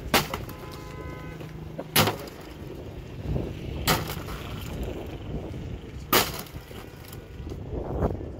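Four sharp bangs or knocks, evenly spaced about two seconds apart, over a steady low background rumble.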